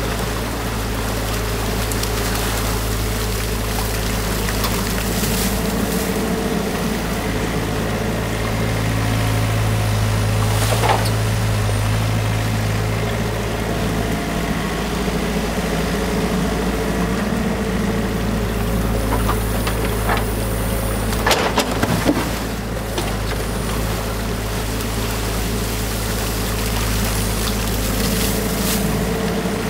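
New Holland Kobelco mini excavator's diesel engine running steadily, working harder for a few seconds about a third of the way in, with a few sharp knocks from the digging. Water rushes through the freshly unclogged culvert underneath.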